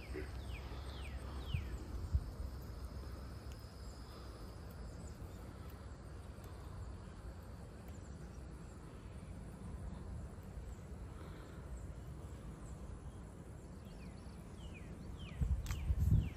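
Outdoor waterside ambience with a steady low rumble. A few short, downward-sliding bird chirps come near the start and again near the end, and a faint high insect hum runs through the first few seconds. The loudest sounds are a couple of dull bumps near the end.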